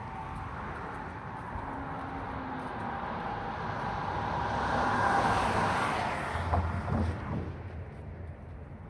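A road vehicle passing by: its noise swells to a peak about five seconds in, then fades away.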